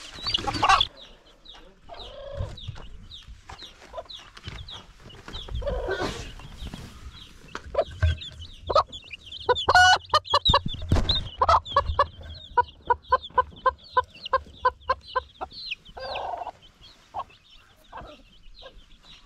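A mother hen clucking with her chicks peeping around her. Near the middle comes a quick, even run of clucks, about four a second, and the chicks' high peeps go on throughout.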